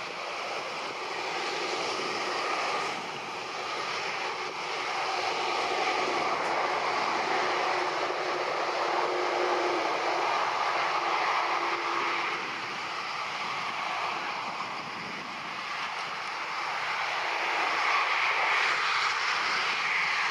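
Jet engines of an Airbus A330 airliner taxiing at low power: a steady rushing noise that swells about two seconds in, eases off, and swells again near the end.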